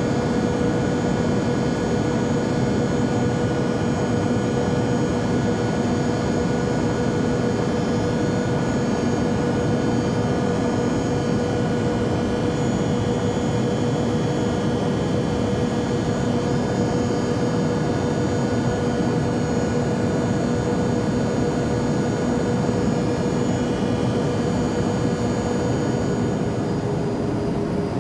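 Airplane noise: a steady, even rushing drone with a constant hum running through it, the hum dropping slightly in pitch near the end.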